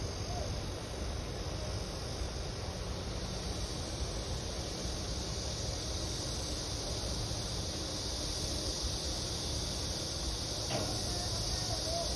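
Steady outdoor city ambience: a low rumble of distant road traffic under a high, even drone of summer insects that swells a few seconds in.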